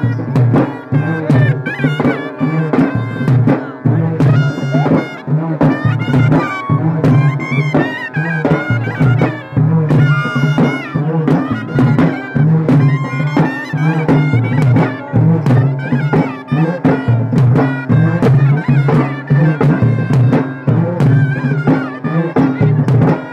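Traditional folk band playing for a costumed dance: a stick-beaten drum keeps up a fast, dense rhythm while a shrill reed wind instrument plays a wavering melody over a steady low drone.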